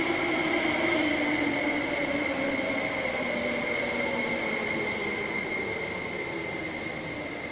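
Ma On Shan Line 8-car electric train pulling in and slowing: its motor whine falls gently in pitch and the running noise fades as it brakes. A steady high tone holds over it.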